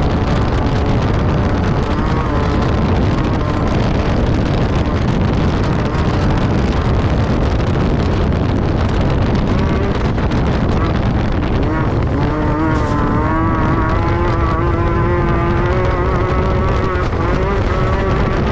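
Class 10 desert race buggy's engine running hard over a dense rumble. About two thirds of the way through, the engine note climbs and then holds at a higher pitch.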